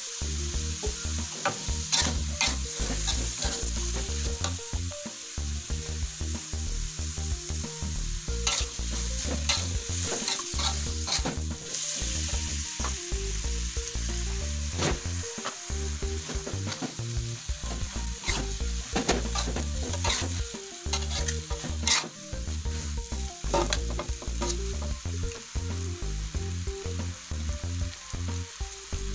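Stir-fry sizzling in a metal wok, with a metal spatula scraping and clinking against the pan again and again as the noodles, vegetables and meatballs are tossed.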